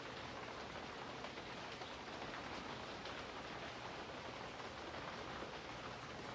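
Steady rain falling, an even hiss with no other sound standing out.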